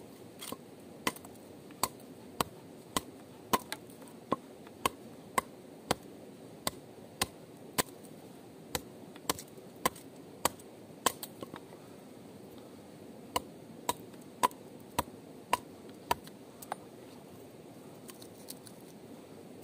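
A steady series of sharp chopping strikes, about two a second, with a pause of about two seconds just past the middle; they resume, then thin out and stop. A steady low rushing noise runs underneath.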